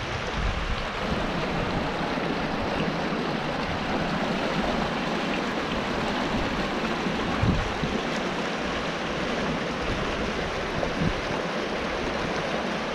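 River water rushing steadily through narrow channels and small cascades in limestone rock, with a few low wind buffets on the microphone.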